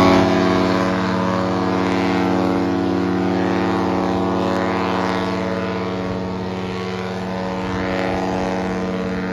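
Cruise ship horn sounding one long, steady blast: a deep, loud note with many overtones.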